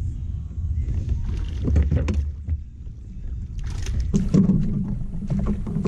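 Wind buffeting the microphone, then splashing and knocking at the surface as a hooked fish is brought alongside the kayak and scooped into a landing net.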